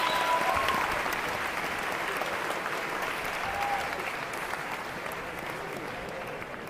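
A small group clapping by hand, the applause slowly fading away.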